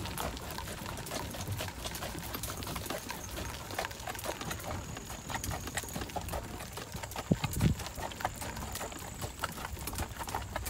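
Horse hooves clip-clopping on a gravel lane while an Amish buggy rolls along, its spoked wheels rumbling and crunching over the gravel. A couple of louder knocks come about seven seconds in.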